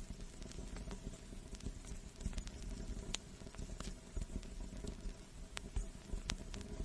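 Vinyl record surface noise: a steady soft hiss and low rumble with irregular sharp pops and clicks scattered through it, several a second.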